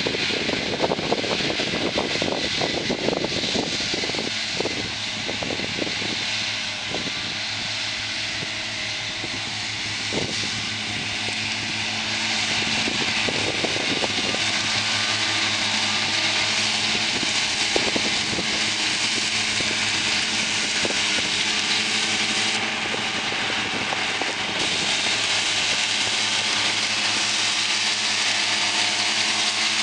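Deutz-Fahr tractor running under load while its Pöttinger front disc mower spins and cuts grass. The engine gives a steady drone, over a constant high whirring hiss from the mower discs.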